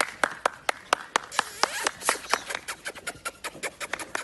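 Hands clapping in a quick, uneven run of sharp claps, several a second, growing denser about halfway through.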